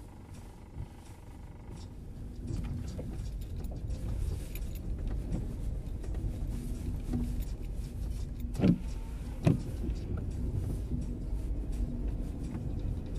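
Inside a car cabin: low engine and tyre rumble on a snow-covered road, growing louder as the car gets under way. Midway there are two sharp knocks a little under a second apart, the loudest sounds.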